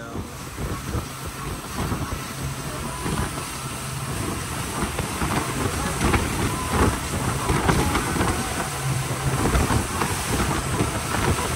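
A speedboat running at speed: a steady engine drone under the rush of spray and water along the hull, with uneven buffeting.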